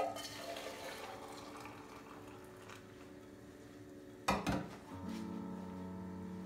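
Kitchen sounds: a brief run of water and dishes clinking, then a couple of sharp knocks about four seconds in, over soft background music.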